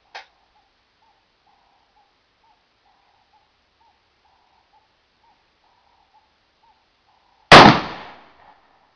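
A .50-calibre black-powder percussion-cap muzzleloading rifle firing a single shot about seven and a half seconds in: one sharp, loud report whose boom dies away over about a second.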